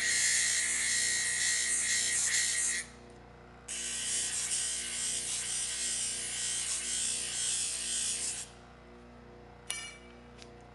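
DoAll vertical band saw machinery running in two bursts of high-pitched, hissing whir, each about four to five seconds long, over a faint steady hum, with a short click near the end.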